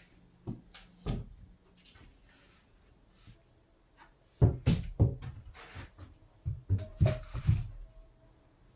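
Knocks and clunks from handling the door frame during installation. There are a couple about a second in, then a dense run of them from about halfway.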